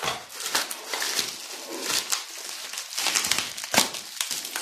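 Plastic wrapping crinkling and a small cardboard box being handled as it is unpacked: irregular rustling with sharp crackles.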